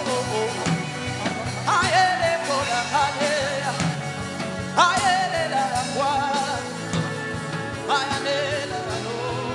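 Background worship music with a voice singing held, wavering phrases over it, one starting about every three seconds.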